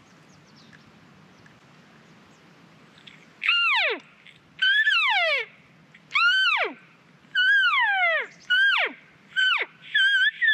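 Elk cow calls: a string of about six short mews, each sliding down from high to low pitch, beginning about three seconds in.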